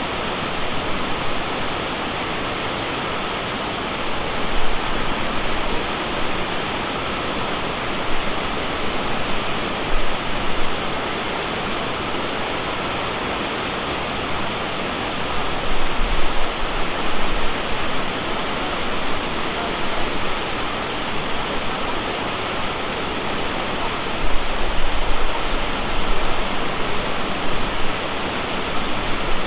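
Dudhsagar waterfall: a steady, loud rush of falling water, with low rumbling swells about halfway through and again near the end.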